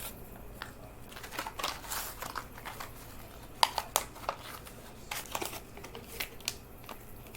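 Plastic-and-cardboard blister pack of a toy die-cast car being handled and pried open: irregular crinkling and clicking, with a couple of sharper snaps about three and a half to four seconds in.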